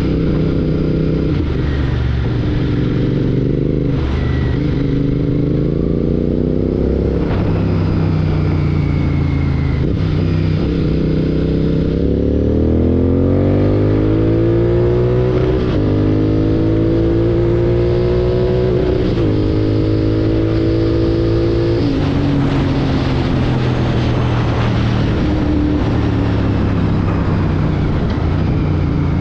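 Royal Enfield Continental GT 650's 648 cc parallel-twin engine running through an aftermarket Red Rooster Performance exhaust, under way. It accelerates and shifts up through the gears, its pitch climbing and then dropping sharply at each change several times, and settles lower near the end.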